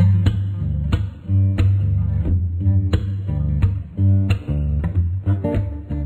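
Background music: plucked and strummed guitar over a bass line, with a steady beat of about one stroke every two-thirds of a second.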